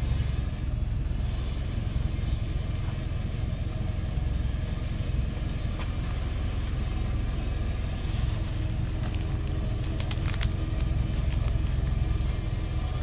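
Engine of a truck laden with acacia logs, running steadily at low speed with a low rumble as it crawls along a rough forest track. A few short sharp clicks or rattles come about six seconds in and again around ten to eleven seconds.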